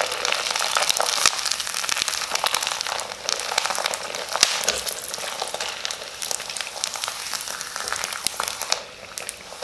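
Sun-dried sago (sabudana) papad deep-frying in hot oil: a dense sizzle with fine crackling as the papad puffs up and expands. The sizzle eases off a little near the end.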